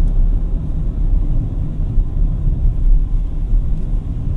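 Road and tyre rumble heard inside the cabin of an electric BMW iX3 as it accelerates, a steady low noise with no engine note.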